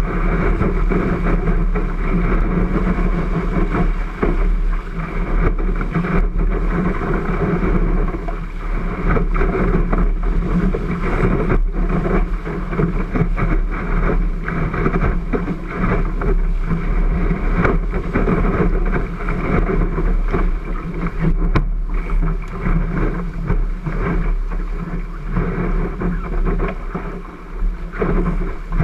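Water rushing along the hull of a Cherub 12 ft skiff sailing fast downwind, mixed with wind buffeting the camera microphone. A steady, muffled rush with a low rumble, swelling and easing a little.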